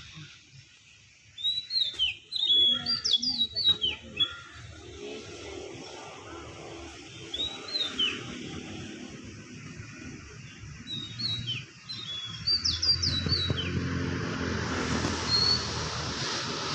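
Birds chirping in short runs of quick, downward-sliding high notes over a steady outdoor hiss. A low rumble grows in the last few seconds.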